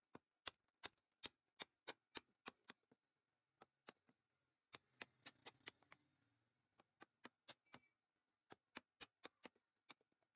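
A chisel being struck, chopping a mortise into a wooden bed leg: sharp taps about three a second, in runs of several with short pauses between.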